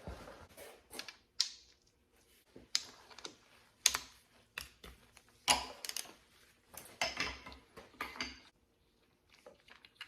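Irregular sharp clicks and short rattles of timing chain guides and chain being handled, slid off and set down on a Subaru FA20 engine.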